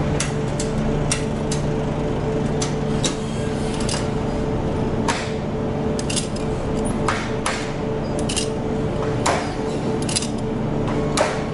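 An engine runs steadily underneath while sharp metallic clicks and knocks come at irregular intervals throughout.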